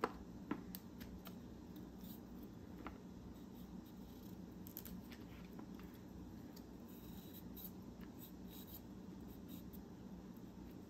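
Faint scattered cuts and scrapes of a kitchen knife paring broccoli stems and trimming florets, with small clicks a few times a second at first, then sparser, over a low steady hum.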